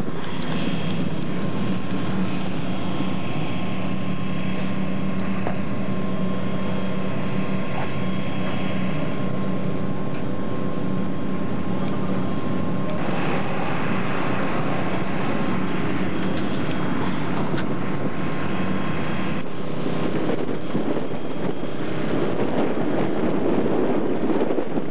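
Wind buffeting the camcorder microphone with a steady rushing noise, over a constant low hum. The rush gets brighter and heavier about halfway through.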